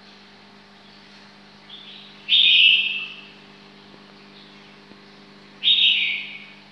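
A bird calling twice, each high call lasting about a second, the calls about three seconds apart, over a steady low hum.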